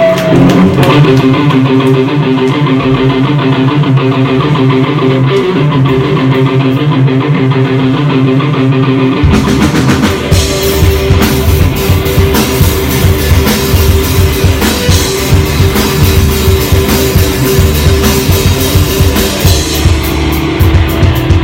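Live rock band playing. For about nine seconds electric guitars ring out sustained notes, then drums and bass come in with the full band.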